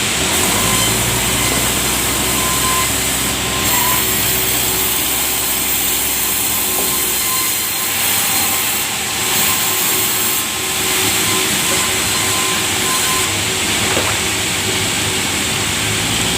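Sawmill saw running steadily as it cuts lengthwise through a large log, a loud continuous machine noise with a high hiss and a faint whine that shifts a few times as the cut goes on.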